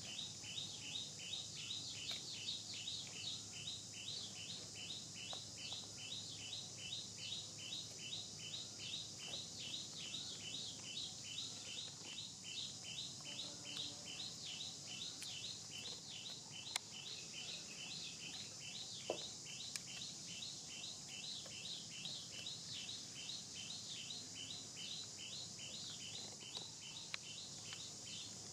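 A bird calling in a long, even run of short, high chirps, several a second, over a steady high drone of insects.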